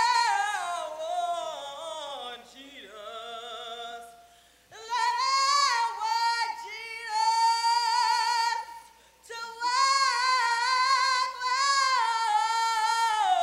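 A woman singing solo in an operatic, classical-crossover style without accompaniment, holding long notes with wide vibrato. The singing stops for a breath about four seconds in and breaks briefly again around nine seconds.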